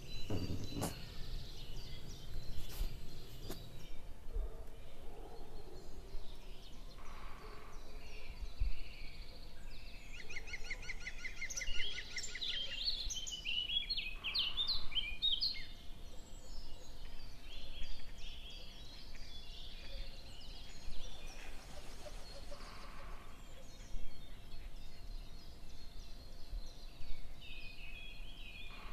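Small birds chirping and calling in the open air, with a rapid trill of repeated notes about ten seconds in and scattered chirps through the rest, over a faint steady background hiss.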